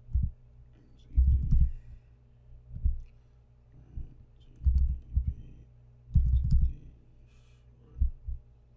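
Computer keyboard typing and mouse clicks, heard as a series of short, dull thumps and clicks at irregular intervals over a faint steady hum.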